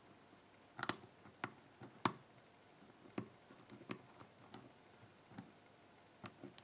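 Lock pick and tension tool working the pins of a pin-tumbler lock cylinder: scattered small metallic clicks and ticks at irregular intervals, loudest about two seconds in.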